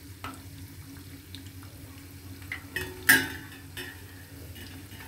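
Corn pakoras frying faintly in hot oil in a stainless steel pan, with a wire spider skimmer clinking against the pan's rim: a few light clicks, then one sharp metallic knock with a short ring about three seconds in.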